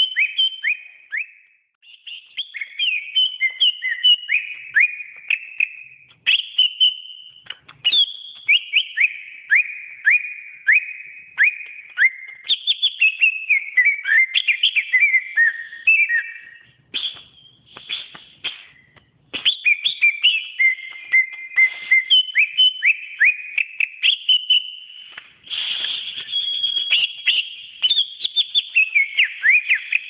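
Cucak ijo (green leafbird) singing a fast, varied run of clear whistled notes and downward-sweeping chirps, broken by a few short pauses.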